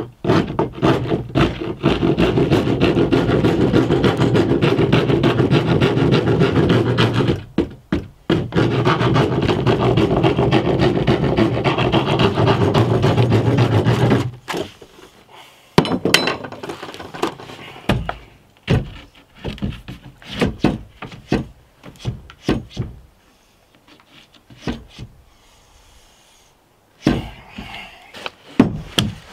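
A sheet of plywood being worked with a tool: a loud, continuous rasping rub on the wood for about fourteen seconds, broken by a short pause halfway through. After that come scattered knocks and bumps as the plywood is handled.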